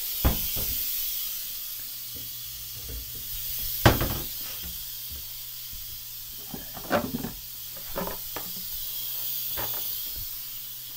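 Instant Pot pressure cooker hissing steadily as steam rushes out of its release valve in a quick pressure release after the pot reached pressure. A few knocks and clatters sound over the hiss, the loudest about four seconds in.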